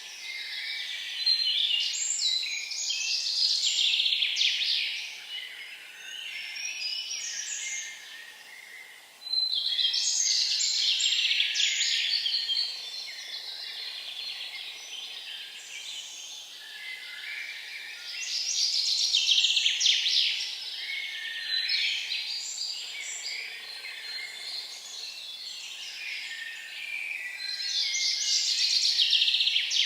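A songbird singing: dense, high-pitched phrases of two to four seconds, repeated about every nine seconds, with quieter twittering between them.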